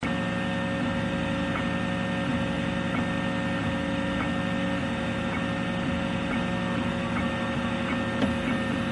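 RepRap MendelMax 3D printer running a print: a steady hum of its stepper motors with several constant tones and faint ticks now and then as the print head moves over the bed.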